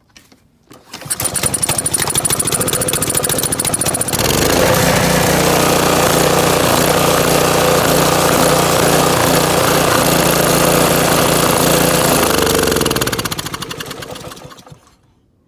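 Honda GC190 single-cylinder engine starting about a second in, running up to a steady speed a few seconds later, then slowing and dying near the end. It is being fed Orbeez water beads, which the owner takes to be what kills it.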